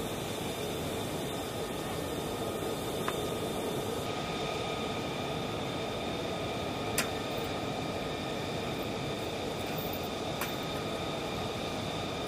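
Steady mechanical drone of flight-line machinery with several high, steady whining tones, and three sharp metallic clinks spread through it as a tow bar and chain are hitched to an F-35B's nose landing gear.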